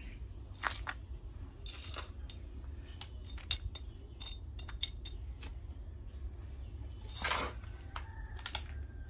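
A small metal hand tool scraping and digging into gritty potting mix of soil, gravel, sand and compost in a plastic pot: scattered light clicks and scrapes, a longer scrape about seven seconds in, and a sharp click near the end.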